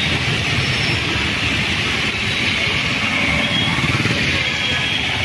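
Heavy rain and traffic on a waterlogged road: a steady hiss of rain and tyres on wet tarmac, over low engine noise from passing motorbikes, auto-rickshaws and cars.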